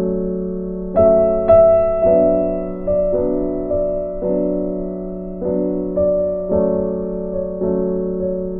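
Background music: a soft electric-piano piece with chords struck about once a second, each ringing on and fading.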